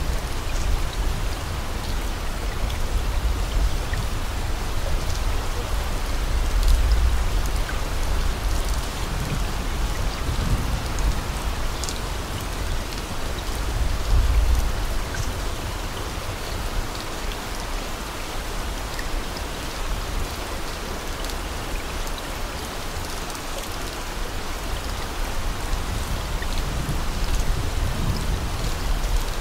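Steady rain, an even hiss with low rumbles swelling now and then.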